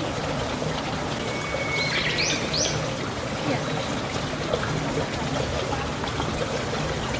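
Steady sound of flowing water, with a bird giving a few short rising chirps about two seconds in.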